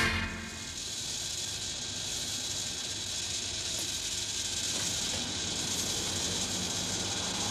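Steady, even hiss with no distinct events, after the last note of a brass music sting dies away at the very start.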